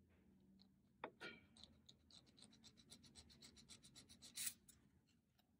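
Faint rasping of a hand nail file worked in short, quick strokes around the edge of dried white acrylic nail tips, refining the smile line. One stroke about four and a half seconds in is louder than the rest.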